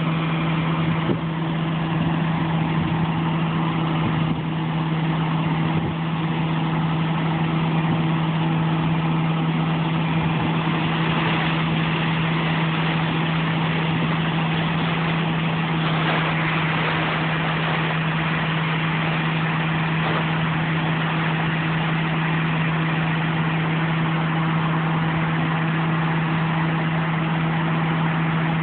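Harvest machinery's diesel engine running steadily at a constant speed, a steady hum under even mechanical noise.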